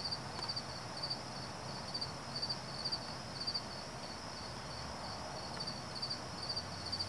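Crickets chirping, short pulsed chirps about twice a second over a steady high insect trill.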